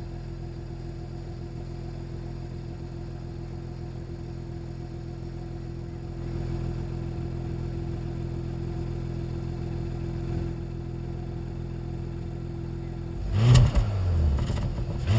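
Exhaust of a Porsche Cayenne Turbo E-Hybrid's four-litre twin-turbo V8, idling steadily. Near the end the engine is revved in two short blips, each dropping back to idle.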